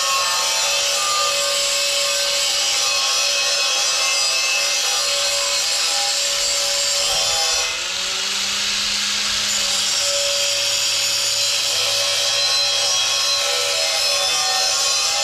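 Angle grinder working a quarter-inch steel U-channel: a steady, harsh metal-on-abrasive hiss over the grinder's motor whine, letting up for a moment about halfway through before bearing in again.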